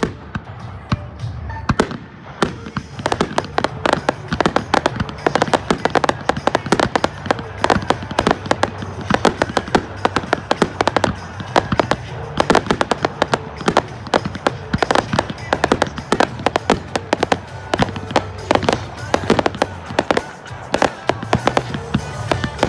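Fireworks display bursting in a dense, rapid barrage of bangs, several a second, building up about two seconds in, with music playing underneath.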